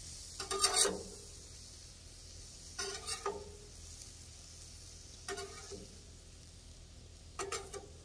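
Tongs clacking and scraping against the Blackstone griddle top and a plate in four short bursts, about every two and a half seconds, each with a brief ring. Underneath, food sizzles faintly and steadily on the hot griddle.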